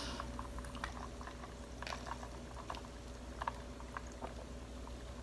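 Fresh, fizzy ginger ale over ice being sipped through a straw: faint, scattered crackling of the carbonation with small clicks.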